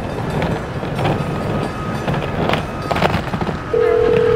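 Busy city street noise with clattering and knocks. About three and a half seconds in, a steady telephone ringback tone starts: a call ringing at the other end.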